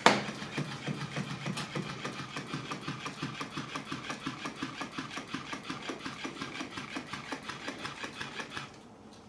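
Electric flopping-fish cat toy running on a hardwood floor: its small motor buzzes while the fish's body flaps in a fast, even rhythm of about five beats a second. It starts suddenly and cuts off shortly before the end.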